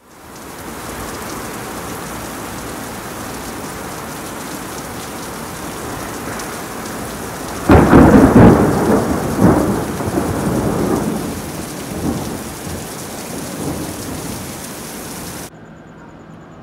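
Heavy rain pouring down in a thunderstorm. About eight seconds in, a loud thunderclap breaks and rumbles on in waves for several seconds. Near the end the sound cuts off suddenly to a much quieter background.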